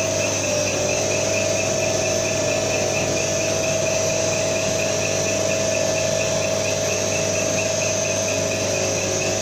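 Common-rail diesel test bench running steadily through a calibration test: a constant mechanical hum with a faint rapid pulsing, about three beats a second.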